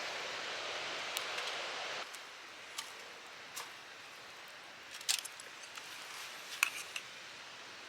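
Steady hiss of wind and surf that drops away about two seconds in, followed by scattered light clinks and clicks of metal utensils and cookware being handled.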